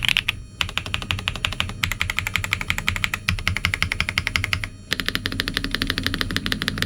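Fast typing on a Shadow Zeus 75, a plastic 75% mechanical keyboard with Frappucino switches and PBT Cherry-profile keycaps, giving a creamy clack. Bursts of rapid key strokes, with brief pauses near the start and about five seconds in.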